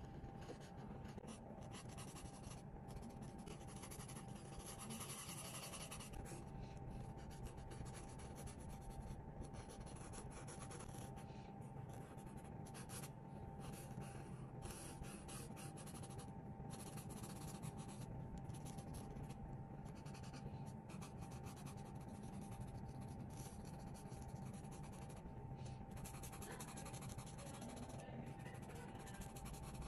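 Marker tip rubbing on sketchbook paper in many short back-and-forth strokes, with brief pauses between strokes, as an area is coloured in.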